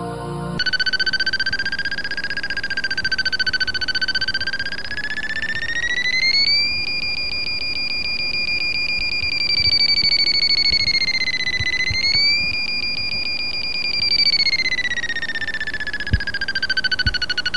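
Paragliding variometer beeping: a fast run of electronic beeps that starts about half a second in, glides up in pitch about six seconds in, dips briefly and rises again, then falls back near the end, the vario's climb tone. A single click near the end.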